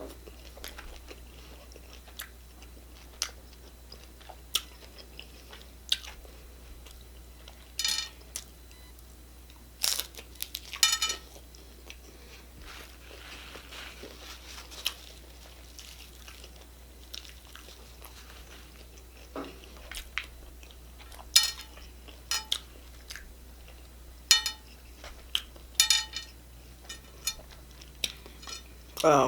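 Close-up chewing and crunching of Taco Bell crunchy hard-shell tacos: irregular crisp crackles as the shells break between the teeth, with wet mouth sounds and pauses between bites.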